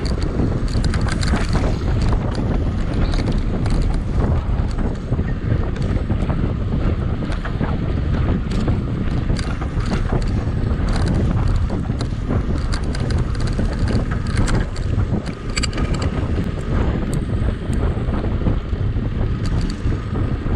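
Wind buffeting the microphone of a camera on a mountain bike ridden at race speed, a steady low rush, with scattered sharp clicks and rattles from the bike on rough trail.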